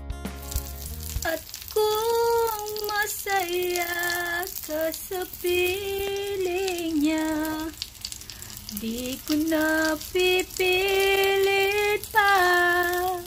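Eggplant omelette sizzling as it fries in oil in a pan, with a woman singing long held notes over it. Background music ends about a second in.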